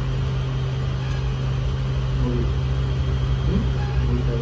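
A steady low mechanical hum over a constant background hiss, with a few faint brief sounds in the second half.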